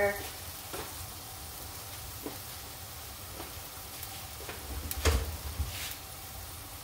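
Steady hiss of stew pots heating on gas burners, with a few faint clicks and a dull knock about five seconds in.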